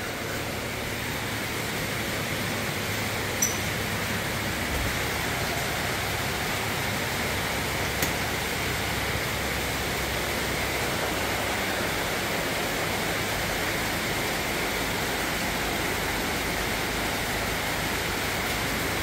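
Heavy tropical rain falling steadily on a corrugated sheet roof, a constant loud hiss of water, with two brief clicks a few seconds apart.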